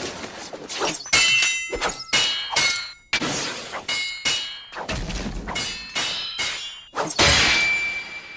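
Anime fight sound effects of kunai blades clashing: a rapid series of sharp metallic clangs and hits, many ringing briefly, about a dozen in all, with a longer whooshing strike near the end.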